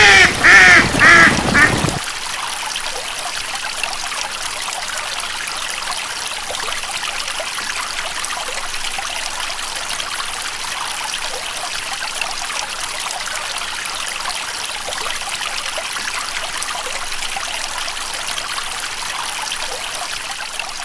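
A duck quacks loudly several times in the first two seconds. Then water trickles steadily as it flows and seeps through a small channel of soil and mud.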